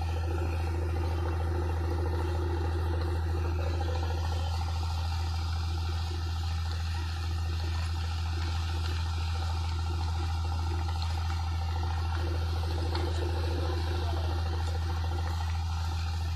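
Small fishing boat's engine running steadily at cruising speed, a constant low drone over the rushing water of the boat's wake.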